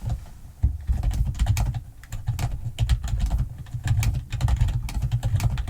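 Fast, continuous typing on a computer keyboard: a dense run of clicking keystrokes, each with a heavy low thud.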